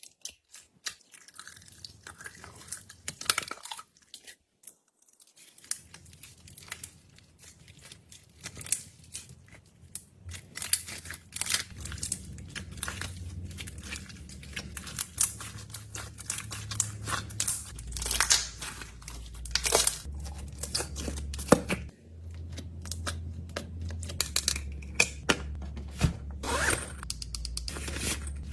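Packaging being torn open and crinkled by hand, with many sharp clicks, crackles and rustles as wrappers and containers are handled. A low steady hum runs underneath from about halfway in.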